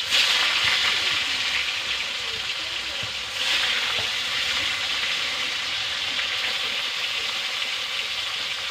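Pieces of fish being dropped into hot oil in a wok and sizzling. The sizzle surges louder right at the start and again about three and a half seconds in as more pieces go in, then settles to a steady frying hiss.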